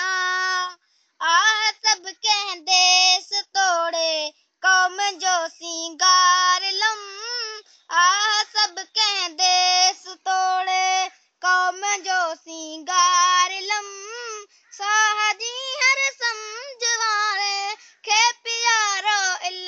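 A child's high voice reciting a Sindhi poem in a sung, chanted melody, with no accompaniment. Phrases of one to two seconds are broken by short pauses, and the pitch bends and wavers within each phrase.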